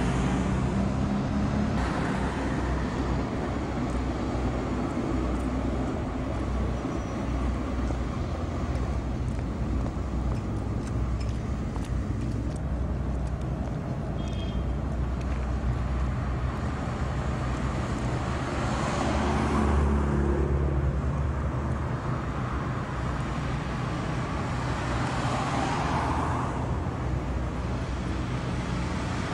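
Street traffic: motor vehicles running with a steady low rumble, and vehicles passing close by twice, about two-thirds of the way through and again near the end.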